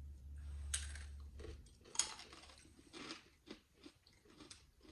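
Crunchy barbecue-flavoured coated peanuts (Nic Nac's) being bitten and chewed: a series of sharp crunches, strongest about two seconds in. A low hum fades out after about a second and a half.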